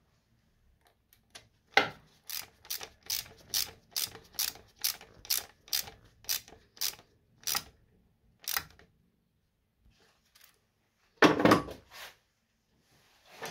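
Ratchet wrench clicking in a steady rhythm of about two clicks a second as screws are tightened, then a louder clatter near the end. The screws are drawn up gently so the gaskets seat and seal.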